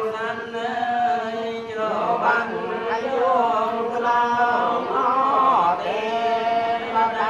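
Voices chanting a Buddhist blessing: a steady, droning recitation on held notes, the pitch gliding now and then.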